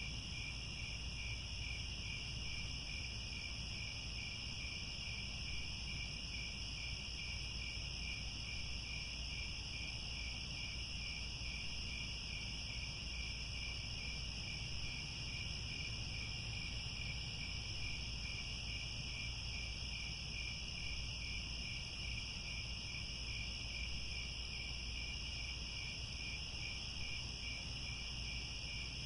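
Dense chorus of crickets chirping continuously at two overlapping pitches, the lower one pulsing evenly, over a faint low rumble.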